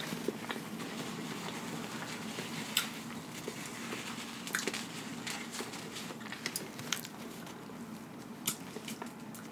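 Close-miked chewing of seafood-boil food: soft wet mouth sounds with scattered small clicks.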